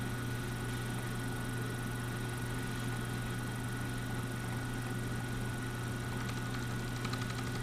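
Milling machine spindle running steadily with an end mill turning: a constant low hum with a thin high whine over it. Faint light ticks come in near the end as the cutter begins to catch the paper feeler held against the part.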